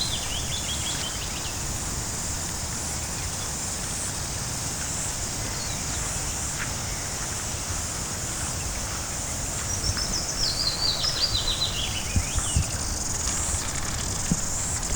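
A small stream running steadily, with a steady high hiss above it. A songbird sings a trill of quick notes that falls in pitch, once at the very start and again about ten seconds in.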